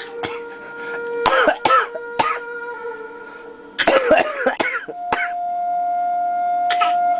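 A baby making pretend coughs, a series of short coughs in small clusters, over a steady held tone in the background.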